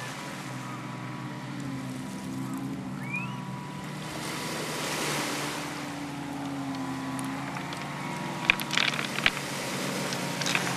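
Surf washing on a pebble beach, swelling in the middle, over a steady low hum. Near the end comes a quick run of sharp clicks and knocks.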